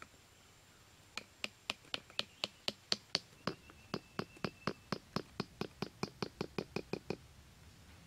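Quick, even knocking with a slight ring, about four strikes a second for some six seconds: a metal blade tapping at the base of a bamboo trap.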